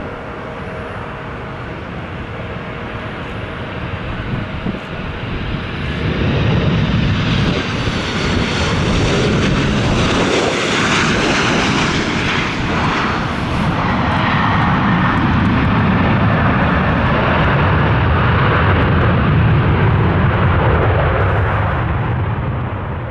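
Jet airliner's engines as it comes in to land and passes close by. The sound builds about six seconds in, stays loud for a long stretch, then fades near the end.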